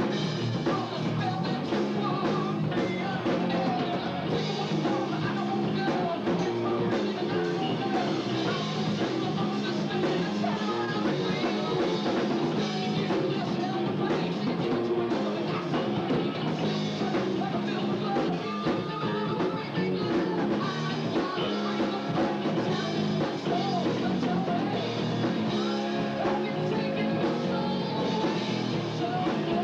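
Rock band playing a song live: electric guitar and drum kit with a lead singer, a steady full-band sound without a break.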